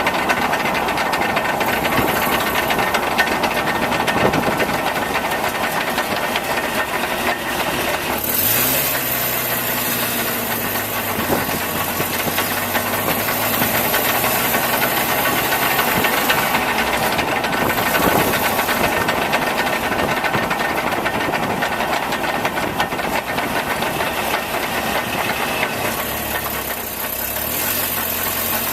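Nissan pickup truck's engine and running gear heard from underneath the truck, running continuously. The pitch rises about a third of the way in, then shifts up and down in steps, with a steady hiss over it. The owner is recording it to track down an unexplained noise.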